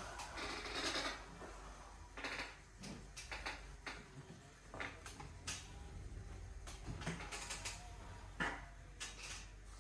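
Power wheelchair driving: a low motor hum with scattered clicks and creaks from the chair as it moves.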